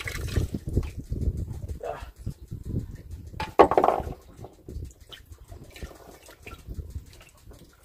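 Water splashing and dripping with small knocks as live bait fish are handled on a wooden boat, then a short louder burst about three and a half seconds in.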